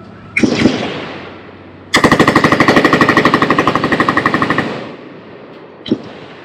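Machine gun fire: a couple of quick shots, then a sustained fully automatic burst of about two and a half seconds at roughly thirteen rounds a second, stopping suddenly and dying away.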